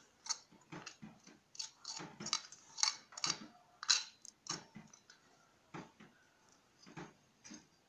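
A spoon scraping and tapping chopped red onions out of a small clay bowl into a steel mixing bowl of batter: an irregular run of light clicks and scrapes, loudest about three and four seconds in.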